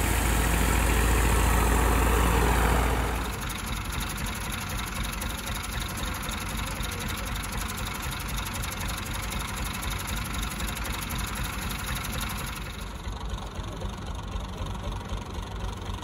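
Tractor engine running a wheat threshing machine, a steady mechanical din. It is loud for the first three seconds, then drops suddenly to a quieter, more distant running sound.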